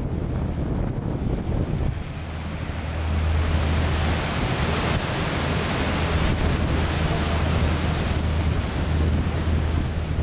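Wind rushing on the microphone aboard an open canal tour boat, over the steady low hum of the boat's engine. The rush grows louder a couple of seconds in.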